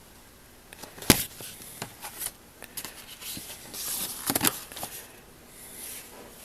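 Heavy shellac phonograph records in paper sleeves being handled and sorted: a few sharp clicks and knocks with paper rustling and scraping between them.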